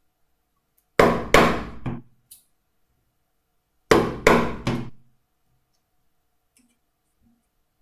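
Wood chisel being struck to chop out the waste of a joint a millimetre or two at a time: two bursts of three sharp blows, about a second in and about four seconds in.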